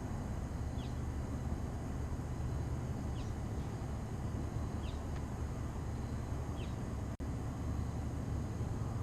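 A bird giving short, high chirps that slide downward, one about every two seconds, over a steady low rumble. All sound cuts out for an instant about seven seconds in.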